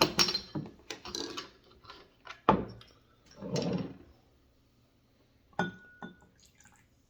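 Soda bottle and small glasses being handled: several knocks and clinks, a short pour about three and a half seconds in, and a glassy clink near the six-second mark that rings briefly.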